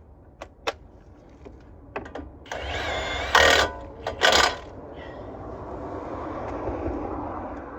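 Chevy Silverado pickup's engine cranked by the starter with a whine and catching with two loud bursts, then running and revving briefly so the raised wheel can be spun to check the new wheel bearing hub. A few clicks come before it.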